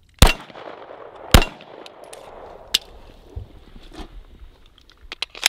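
Two shots from a Canik TP9SFL 9mm pistol about a second apart, each with a ringing echo, followed by lighter metallic clicks of the gun being handled and a sharp snap near the end.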